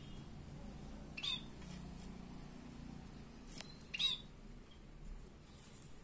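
Scaly-breasted munia calls: two short, downward-curving whistled calls about three seconds apart, with a faint tick just before the second.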